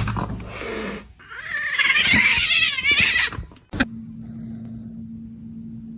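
A cat yowling: one long, wavering cry lasting about two seconds, after a burst of noise at the start. A click follows, then a steady low hum.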